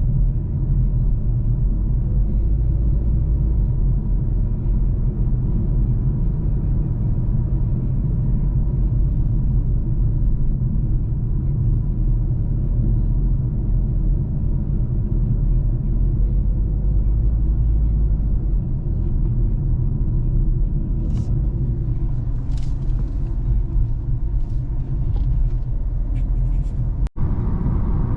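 Car on the move, heard from inside the cabin: a steady low rumble of engine and road noise. The sound cuts out for an instant near the end.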